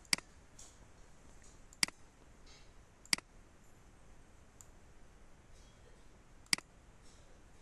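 Four single computer mouse-button clicks, spaced unevenly, over a faint steady hiss.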